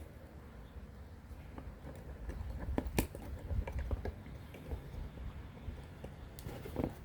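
Light clicks and taps of a small circuit board and soldering tools being handled, scattered and irregular, with one sharper click about three seconds in.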